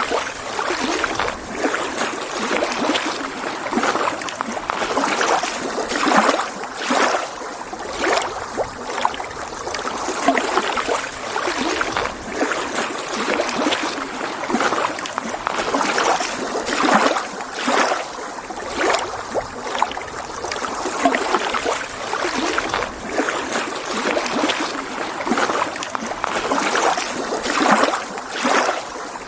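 Small lake waves lapping and splashing against the shore, with many short, irregular surges of water sound.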